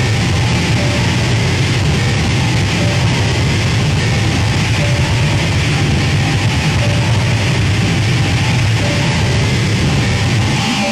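Noise music: a loud, unbroken wall of distorted noise with a heavy low rumble underneath.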